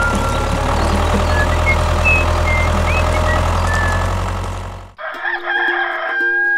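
Tractor engine running steadily with a low rumble, a few short bird chirps over it; it cuts off abruptly about five seconds in and a rooster crows, ending on a long held note.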